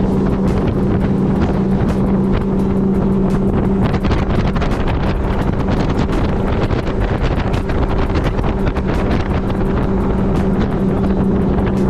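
Boat's outboard motor running steadily at speed, with wind buffeting the microphone.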